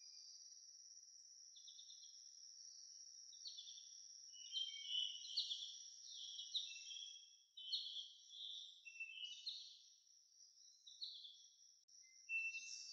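Faint nature ambience: birds chirping in short, repeated runs over a steady high-pitched insect trill. The chirping is busiest through the middle and picks up again near the end.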